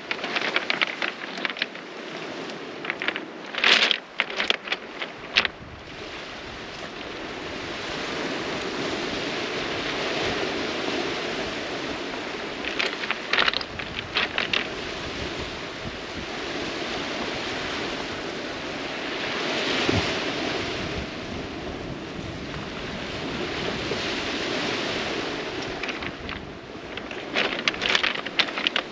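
Small waves washing onto a pebble beach, a rushing that swells and fades every several seconds, with wind buffeting the microphone. A few short runs of sharp clicks come through about four seconds in, around thirteen seconds and near the end.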